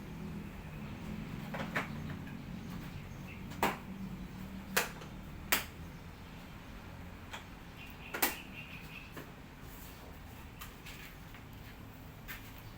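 Sharp small clicks and taps, about half a dozen spread a second or more apart, over a faint low hum: tools and test leads being handled on an air conditioner's capacitor during a capacitance check.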